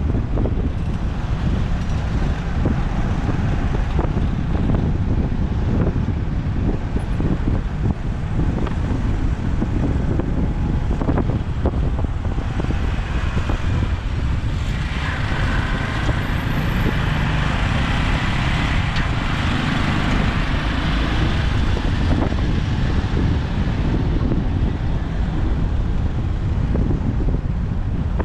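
Road traffic and wind heard while riding a motorbike through city streets: a steady low engine and road rumble. A brighter rushing hiss swells in the middle and fades away again.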